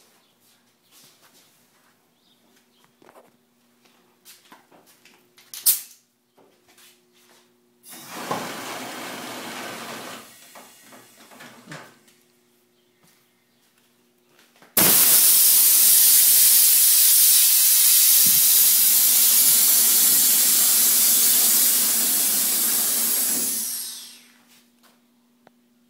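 Air-ride suspension letting compressed air through its valves and lines: a hiss of about two seconds, then a much louder hiss that starts suddenly and runs for about nine seconds before dying away. A sharp click comes a few seconds before the first hiss.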